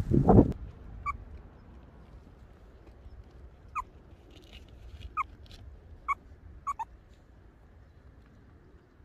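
Meerkat chirping: about six short calls, each falling in pitch, spaced roughly a second apart. A brief loud burst of noise opens the stretch.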